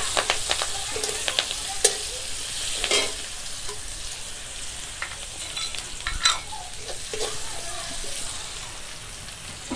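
Chopped onion sizzling in hot oil in a metal kadai, being stirred and fried until it browns; the metal spatula scrapes and taps against the pan now and then, loudest around two, three and six seconds in.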